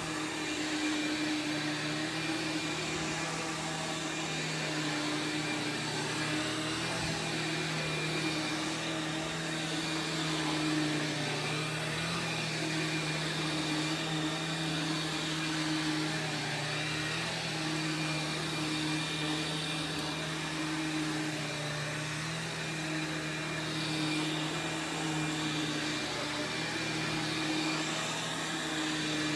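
Sharp Twin Energy EC-12TWT4 upright vacuum's 12-amp two-stage motor running steadily: a constant motor hum over a rush of air.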